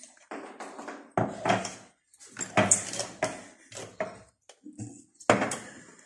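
Kitchen containers and utensils knocking and clinking against the countertop in a series of short clatters, as spice jars are picked up and set down.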